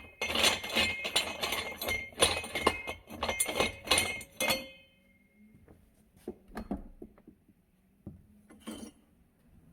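Steel parts of a manual tire changer clanking and clinking with a metallic ring for about four and a half seconds, then a few scattered light knocks.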